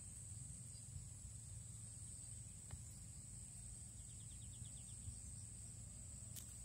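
Faint steady high-pitched insect chorus over a low wind rumble, with a short rapid trill about four seconds in and a sharp click near the end.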